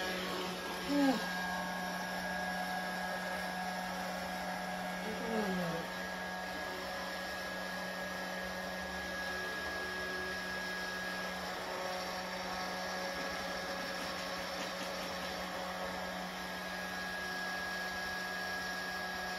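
Twinbird handheld cyclone vacuum cleaner left running steadily, a constant hum with a high whine above it. Two short vocal sounds cut in over it, a rising one about a second in and a falling one about five seconds in.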